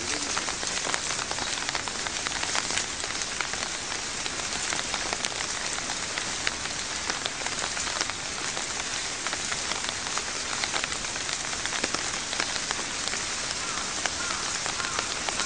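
Steady rain falling, with many small ticks of drops striking surfaces.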